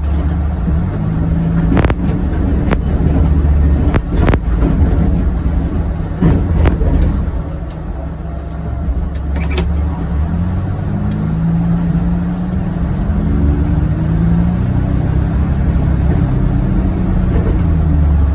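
John Deere Gator UVX 835M utility vehicle's engine running as it drives, a steady low rumble whose pitch rises slightly about two-thirds of the way through, with a few brief sharp clicks.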